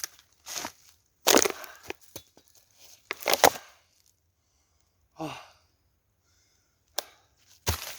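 Dry dead wood being broken and handled: a string of irregular cracking, crunching noises, loudest about a second and three seconds in, with a sharp snap near the end.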